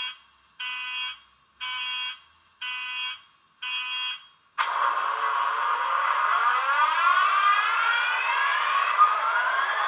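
Soundtraxx Econami sound decoder playing a Class 66 diesel start-up through a model locomotive's small speaker. Five short warning beeps come about a second apart, then the engine starts about four and a half seconds in and its pitch climbs steadily as it runs up.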